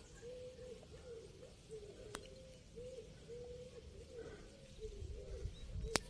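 Pigeons cooing faintly in a steady run of short low coos, with a couple of sharp clicks about two seconds in and near the end.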